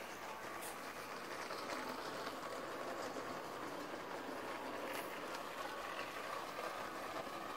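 Motorised Lego City passenger train running on plastic track: a steady whir of the motor and wheels, with a couple of faint clicks.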